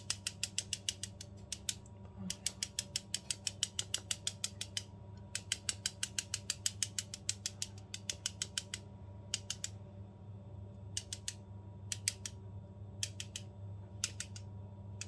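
Metal mesh tea-infuser ball on a handle, filled with flour and shaken over bread dough, clicking rapidly, about eight clicks a second, in three long runs and then in short bursts from about nine seconds in.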